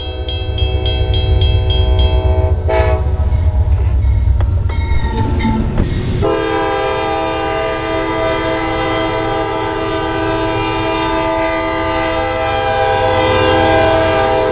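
Train sound: a heavy low rumble of a moving train for the first few seconds, then about six seconds in a long, steady multi-tone train horn blast that holds to the end.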